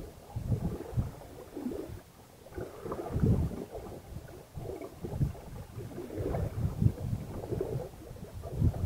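Wind buffeting the microphone and water rushing along the hull of a small sailboat under way, rising and falling in uneven gusts.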